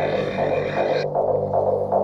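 Background electronic music with a steady low drone; its higher layers drop out about a second in.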